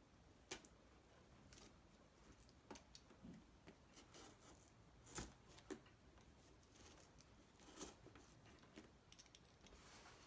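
Faint, scattered clicks and rustles of a cardboard box and its packaging being handled and opened, with a few sharper clicks among them.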